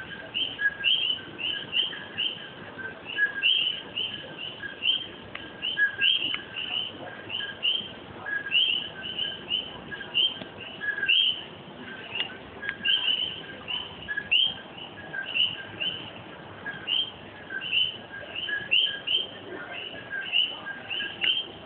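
Chorus of common coqui frogs, many overlapping two-note "co-qui" calls: a short lower "co" followed by a higher, rising "qui", repeating several times a second.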